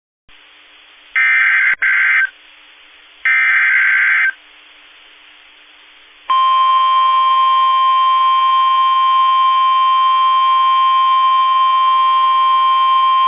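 NOAA Weather Radio Emergency Alert System tones over faint receiver hiss: two screeching bursts of SAME header data, each about a second long, then about six seconds in, the loud, steady 1050 Hz warning alarm tone starts and holds. Together they announce the start of a new severe thunderstorm warning broadcast.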